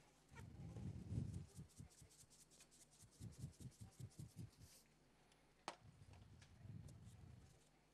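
Faint, fast run of small ticks from a salt shaker being shaken over pieces of hare for about five seconds, with soft handling thumps and one sharp click a little before the six-second mark.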